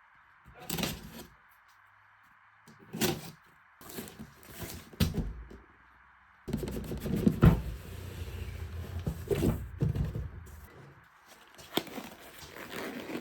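Handling sounds of a Dyson hair dryer: scattered knocks and scrapes, busier in the middle stretch. The dryer is not blowing air.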